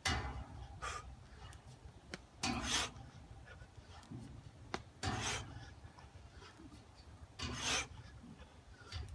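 A man's forceful breaths during muscle-ups and pull-ups on a bar, four sharp exhalations about two and a half seconds apart, over a low rumble of wind on the microphone.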